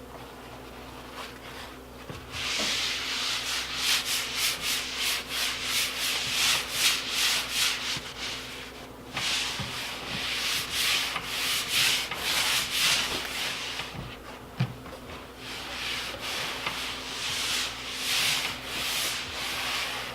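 Wiping a desk surface with a cloth: quick back-and-forth rubbing strokes starting about two seconds in, in three runs with short pauses between them.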